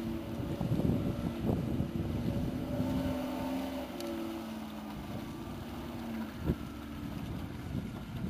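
Off-road 4x4's engine running under load as it drives through a muddy rut, its note shifting up and down. A single sharp knock about six and a half seconds in.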